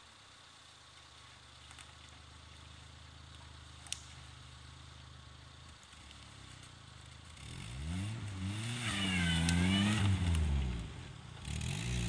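Volkswagen Golf Mk2's engine idling low and steady while the car rolls backwards down a steep dirt bank, with a single sharp knock about four seconds in. From about seven and a half seconds the engine revs up and down hard as the car pulls away over the soft forest ground.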